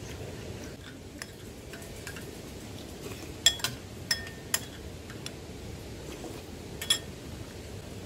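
Metal eating utensils clinking against a pan and bowl while eating: a few sharp, ringing clinks three to four and a half seconds in, and one more near seven seconds.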